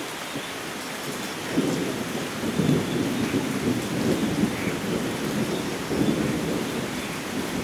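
Steady rainfall hissing, with a long rolling crackle of thunder that builds about a second and a half in and rumbles on before easing off near the end.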